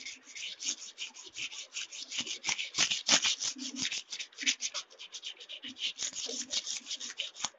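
Strip of wet sandpaper rubbed rapidly back and forth along a steel kitchen knife blade to sharpen its edge: quick scraping strokes, about six a second, that stop suddenly near the end.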